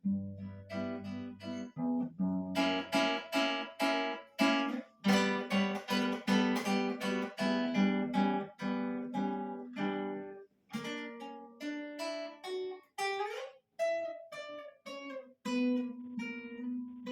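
Solo acoustic guitar playing a fast passage of plucked notes and repeated strummed chords. About two-thirds of the way through a note slides upward, and the passage settles on a held chord that rings near the end.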